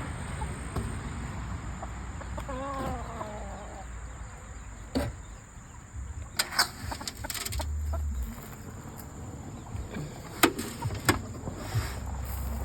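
Silver Spitzhauben chickens clucking, with one drawn-out wavering call about three seconds in. Several sharp knocks and rattles come in the second half.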